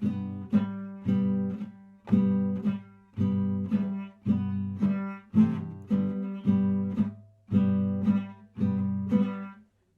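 Guitar strummed in eighths: each downstroke chord rings and is then damped on the upstroke by lifting the fretting fingers, giving a choppy, slightly muffled rhythm with strong strums about twice a second. The playing stops just before the end.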